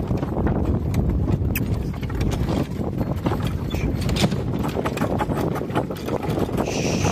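Horses walking, hooves clip-clopping in an uneven run of strikes at a slow, restrained walking pace.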